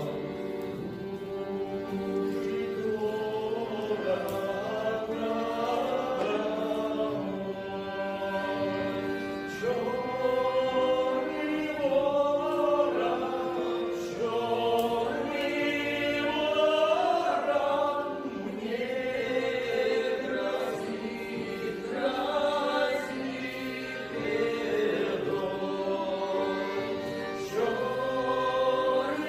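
A vocal ensemble singing a folk song in chorus, several voices moving together over steady held notes.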